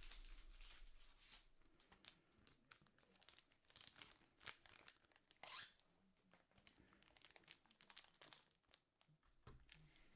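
Faint crinkling and light clicks of a foil trading-card pack wrapper being handled, with a slightly louder crackle about five and a half seconds in.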